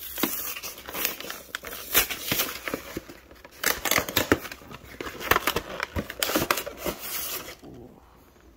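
A cardboard trading-card collection box being opened and its clear plastic insert handled: rapid crackling and crinkling with sharp clicks, dying down near the end.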